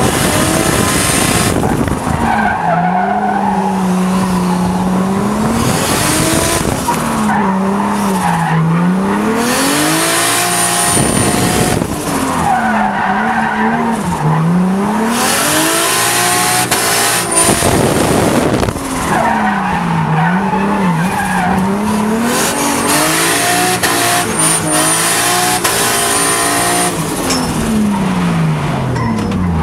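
Turbocharged Toyota 1JZ-GTE straight-six heard from inside the car, revving up and falling back again and again as it is driven hard, with stretches of loud rushing noise.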